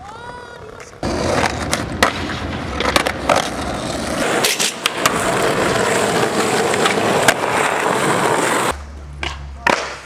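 Skateboarding on city pavement and concrete: wheels rolling over rough ground, several sharp clacks of the board popping and landing, and a long gritty grind along a concrete ledge. The sound changes abruptly near the end.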